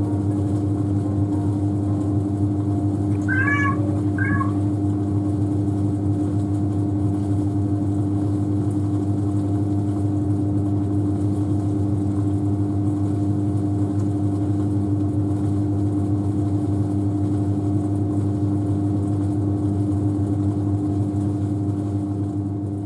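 Washing machine running with a steady hum, and a cat meowing twice, briefly, about three to four seconds in.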